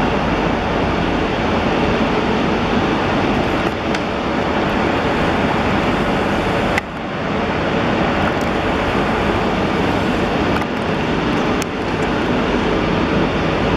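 Steady rumble of a train running in the station, with a brief drop in level about seven seconds in.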